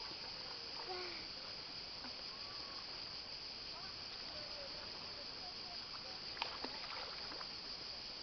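Quiet open-water ambience: soft water sounds from a child swimming beside a small boat under a steady high hiss, with two sharp clicks about six and a half seconds in.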